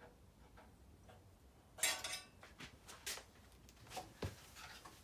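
Metal clinks and a short clattering rattle of an Allen key and the steel blade-guide fittings of a Dewalt 876 bandsaw, handled while the guide blocks are loosened and moved back for a blade change. The clatter about two seconds in is the loudest; a few lighter clicks and a dull knock follow.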